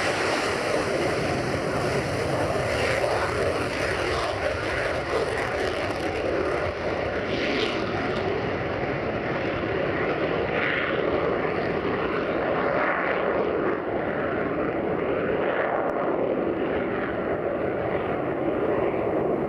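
F-35A Lightning II's single Pratt & Whitney F135 turbofan running at takeoff thrust as the jet lifts off and climbs away: a steady rush of jet noise. Its highest hiss fades after about eight seconds as the aircraft draws away.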